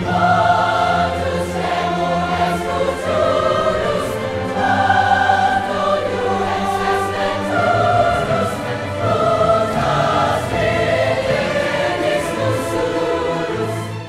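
Large choir singing with a symphony orchestra: full, sustained chords held for about a second each, moving from chord to chord.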